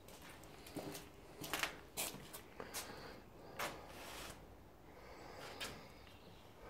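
Faint footsteps scuffing and crunching on a debris-strewn floor in an empty room: a dozen or so short, irregular steps and scrapes.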